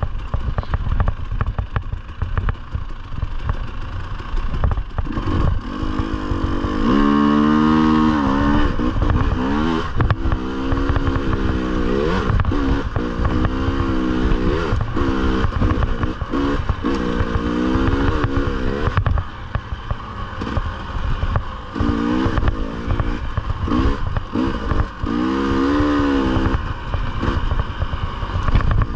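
Dirt bike engine heard close from on board. It runs low and steady at first, then from about five seconds in revs up and down again and again as the throttle is opened and closed along the trail.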